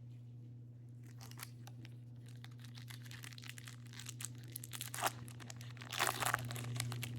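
Plastic wrapper of a Topps baseball card pack being torn open and crinkled by hand, with scattered crackles building to louder tearing about five and six seconds in.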